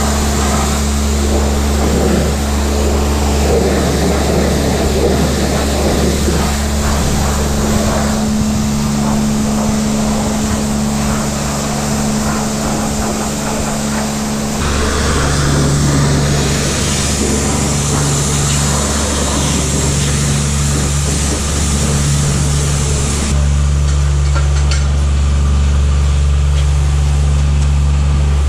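A car running: a steady low engine drone with a wide rushing noise over it, changing abruptly about halfway through and again near the end.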